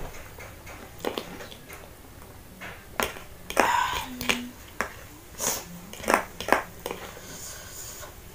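Metal spoon and fork clicking and scraping against the plate as a heap of spicy instant noodles is stirred and lifted: a string of irregular sharp clicks, with a short scraping rush a little past the middle.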